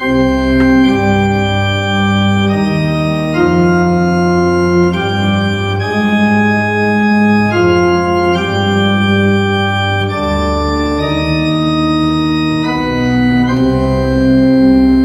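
Pipe organ playing a slow progression of sustained chords over a deep pedal bass, the chords changing about once a second.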